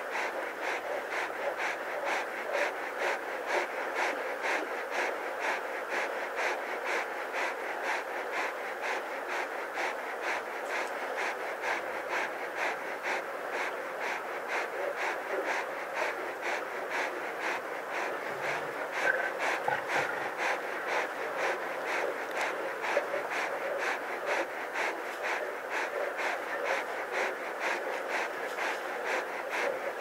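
Close-up lion panting in a quick, even rhythm, a lion cooling itself while resting in the midday heat.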